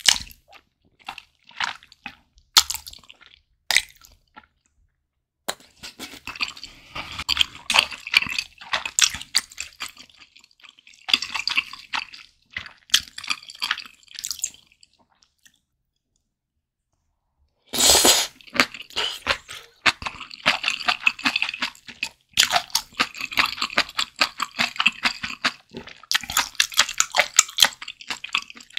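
Close-miked chewing of chewy, wide glass noodles in a mouthful of malatang, with wet, sticky mouth clicks and squishes. It comes in two long stretches, with a few seconds of silence in the middle and a sudden louder sound where chewing resumes.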